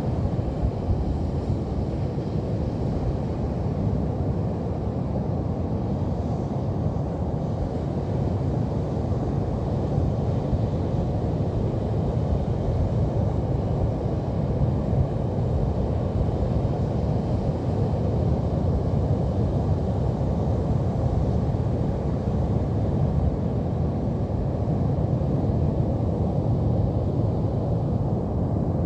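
Steady low rumble of Pacific Ocean surf breaking on a beach, even and unbroken.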